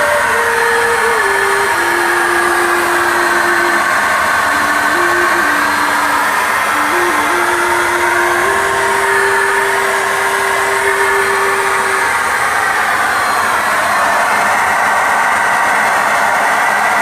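Handheld electric paint spray gun running steadily, its motor and air blowing a continuous rushing hiss as it sprays paint. A thin tone steps between a few held pitches over it until about twelve seconds in.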